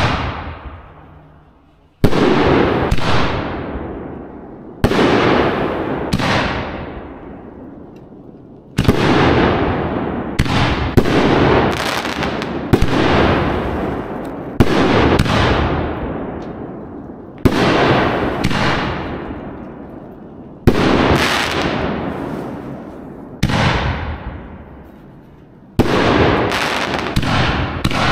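4-inch canister shells fired one after another from a chain-fused rack of HDPE mortars, booming as they lift and break overhead. Loud booms come every two to four seconds, each trailing off in a long echo, with smaller pops between them and a quicker run of pops near the end.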